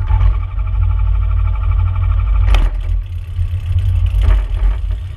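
Kitfox light aircraft's engine and newly fitted propeller running steadily, a loud low drone with two short knocks partway through.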